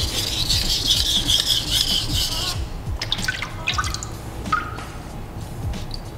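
Kurouchi petty knife blade scraped back and forth across a wet whetstone in gritty sharpening strokes, grinding out a chip in the edge. The scraping stops abruptly about two and a half seconds in, followed by small water drips and clicks.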